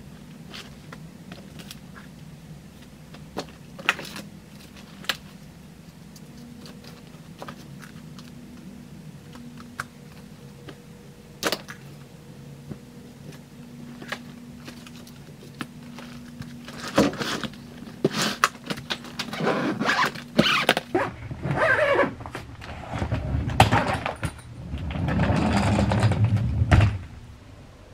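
Objects being handled: scattered clicks and knocks over a steady low hum, turning into denser clattering and a louder rustling noise near the end.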